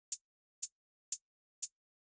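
Bilateral-stimulation drum track: short, bright drum taps at a steady two a second, four in all, the fast drum beat used to alternate stimulation between the left and right sides.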